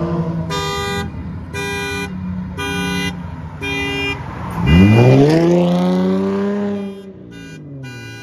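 A car engine running at raised revs while a car horn sounds four evenly spaced honks, about one a second. Nearly five seconds in the engine revs hard, holds, and drops back near the end, followed by a few short quick beeps.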